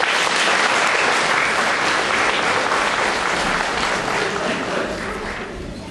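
Audience applauding, loudest over the first few seconds and tapering off near the end.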